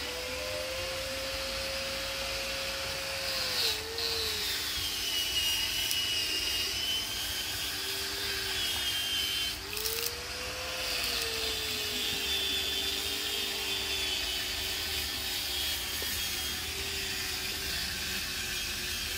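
Red-hot steel sickle blade being quenched in a water trough: a steady hiss of boiling and steam, with thin whistling tones that waver slowly up and down as the blade hardens.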